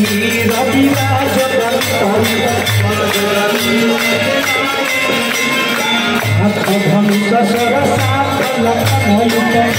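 Devotional aarti music: group singing over a steady beat with jingling percussion and rhythmic hand-clapping.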